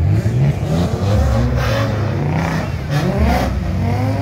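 Car engine revving several times, its pitch sweeping upward with each rev, over a steady low engine rumble.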